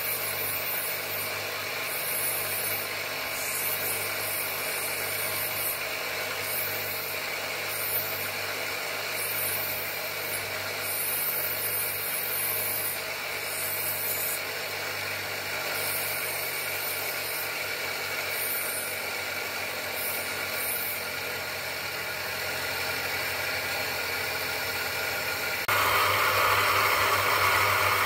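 Bench grinder running steadily with a low hum while an agate stone is held against its spinning grey wheel, a high hiss coming and going as the stone is worked. Near the end the sound turns suddenly louder.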